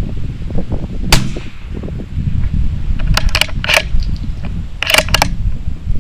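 A single .22 LR rifle shot about a second in, with a short ring-out, then two quick clusters of sharp clicks around three and five seconds in. Wind buffets the microphone throughout.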